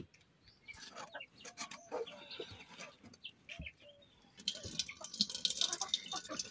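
A hen clucking, with light knocks of metal pots. From about four and a half seconds, liquid pours from a tilted black pot through a perforated steel plate into an aluminium pot, a steady hissing splash.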